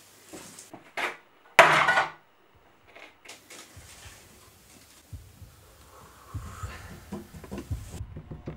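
A loud bang about two seconds in. From about halfway on, fingertips drum on a wooden tabletop in quick, uneven runs of soft low thumps.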